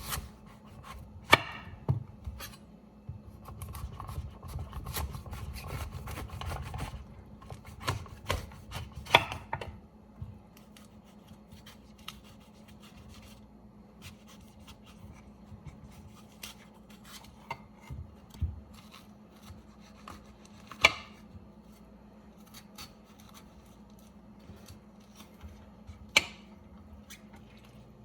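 Kitchen food prep: a knife knocking on a cutting board, with utensil clicks and rubbing. The sound is busiest for a few seconds early on, then gives way to sparse single knocks every few seconds, over a faint steady hum.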